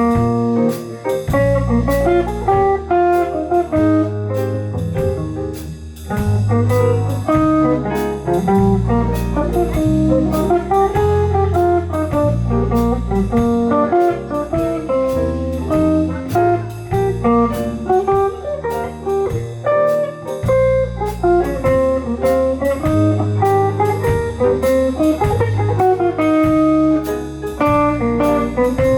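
Live band playing an instrumental jazz-blues number, with a steady drum beat under a bass line and a melodic lead.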